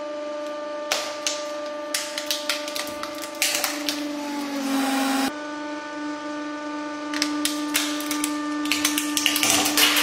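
Hydraulic press motor and pump humming steadily while the plastic housing of a hair dryer cracks and snaps under the ram. After a sudden cut, the hum goes on while a plastic puzzle ball is squeezed, crackling more and more densely until it bursts near the end. The hum sags in pitch while the cracking is heaviest.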